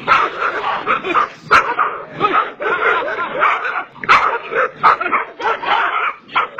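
Several dogs barking aggressively while they rush and snap at a person. The barks are rapid and overlapping, with no pause.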